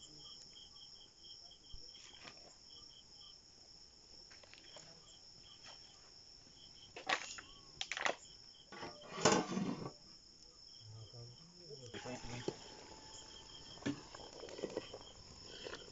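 Crickets chirping: a steady high trill with a short chirp repeating about three or four times a second. A few sharp knocks break in around the middle, the loudest about nine seconds in.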